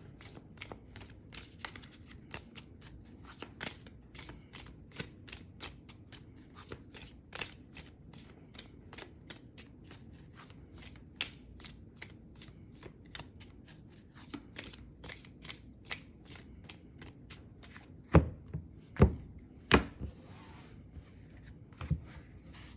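A tarot deck being shuffled by hand: a quick, soft run of card flicks and clicks. About eighteen seconds in the shuffling stops and three louder knocks follow a little under a second apart, with one more near the end.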